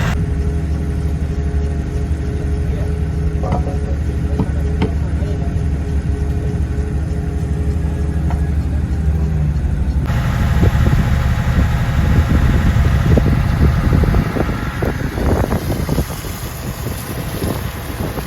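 Fishing boat's engine running steadily. About ten seconds in, irregular knocks and clatter join the engine sound.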